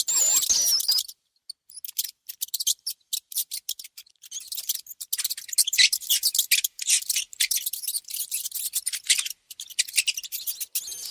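A mouse gives a few short high squeaks, then after a brief pause comes a long run of quick, dry, high-pitched scratching and clicking.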